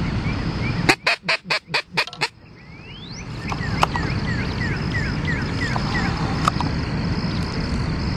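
A teal duck call blown in a quick run of about seven loud quacks, imitating a hen blue-winged teal. A string of short, faint, high chirps follows.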